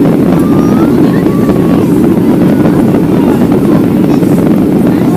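Cabin noise of a Boeing 737-800 in its climb after takeoff: a loud, steady, even roar of its CFM56-7B engines and rushing air, heard at the window seat.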